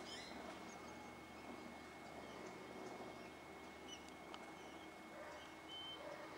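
Faint background birdsong: scattered short chirps and one brief whistled note near the end, over a low outdoor hum.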